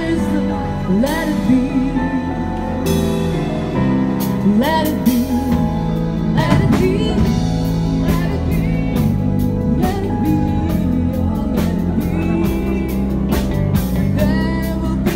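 A song: a singing voice over instrumental accompaniment, with repeated percussive hits.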